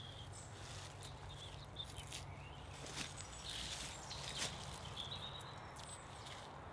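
Thin birch bark being peeled off a birch trunk by hand, giving faint crackles and small tearing sounds. Birds chirp faintly a few times.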